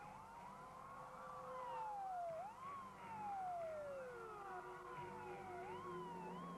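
Several sirens wailing and overlapping, each rising quickly in pitch and then falling slowly, over a steady low hum.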